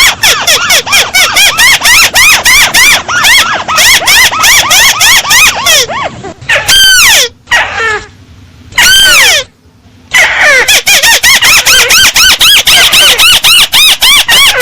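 A paddy-field crake (Indonesian 'burung tikusan sawah') calling in a rapid run of short, high, arched notes. About six seconds in the run breaks off for two slower, drawn-out falling notes with quieter gaps, then the rapid series picks up again about ten seconds in.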